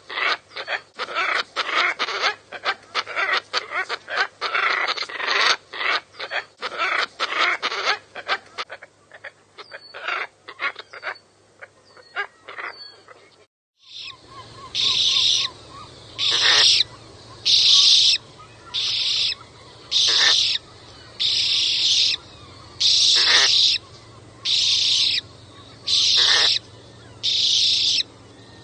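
Scarlet ibis calls. First comes a rapid run of harsh calls that thins out to scattered clicks and a few short chirps. Then, after a break, about a dozen harsh, hissing calls follow one another evenly, a little over a second apart.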